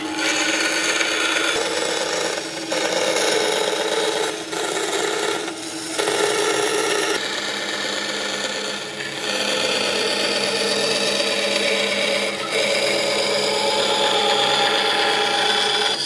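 An abrasive tool grinding against hardwood in a continuous grating run, as the wood is shaped. The run is broken by brief pauses about five times.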